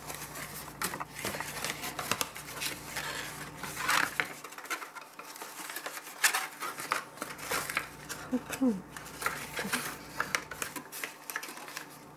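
Stiff paper of a cake mould rustling and crackling as it is folded and pressed into shape by hand, in short irregular crackles.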